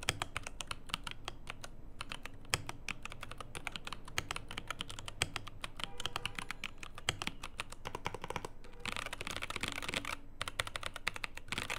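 Typing on an Ajazz AK870MC tenkeyless mechanical keyboard: a continuous run of irregular keystroke clacks, with a busier, denser stretch of keystrokes about nine seconds in.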